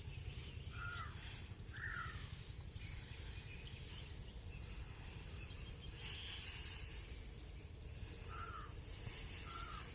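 Rural outdoor ambience: a bird gives short chirps, twice about a second in and twice near the end, over a steady low rumble and hiss.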